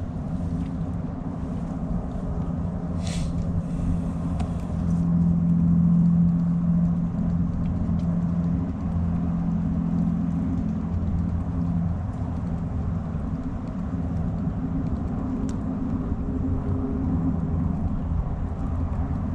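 A motor's steady low rumble with a low hum, swelling a little about five seconds in.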